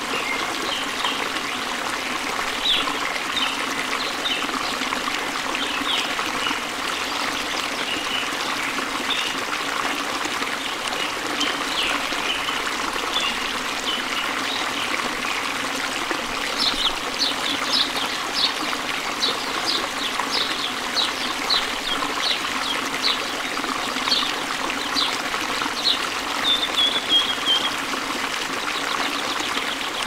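Steady trickling of running water, with birds chirping over it in short high notes that come more often and in quick runs in the second half.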